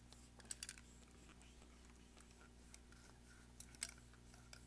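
Near silence with a few faint, light clicks and rubs, about half a second in and again a little under four seconds in, from a cloth cleaning patch being twisted inside the metal action sleeve of a Fabarm XLR5 shotgun.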